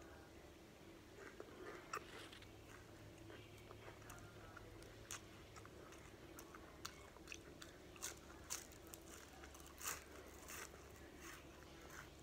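Close-up chewing of crispy battered, deep-fried arugula (jarjeer) leaves, with faint crunches and mouth clicks scattered through; the batter is crumbly rather than hard-crisp.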